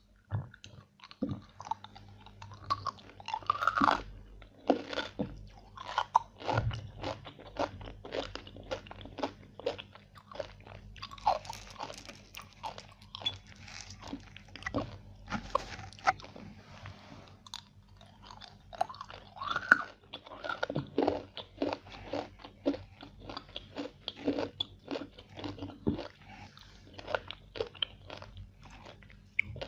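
A person biting and chewing crunchy food close to the microphone: a steady run of crisp crunches and cracks.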